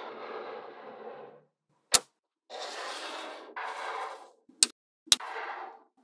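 Small magnetic balls being handled on a table: three sharp clicks as balls snap together, one about two seconds in and two close together near the end, between stretches of a gritty rattling noise as the balls are moved.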